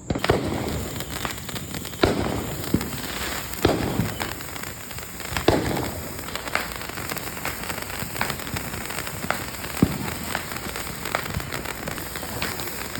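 Small consumer firework going off, hissing and crackling steadily with sharp pops every second or two. The pops are loudest in the first half.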